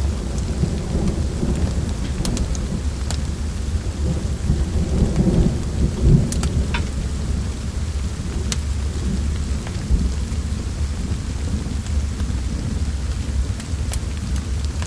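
Steady rain with a continuous low rumble of thunder, which swells about five to six seconds in, and a scattering of sharp crackles from a wood fire.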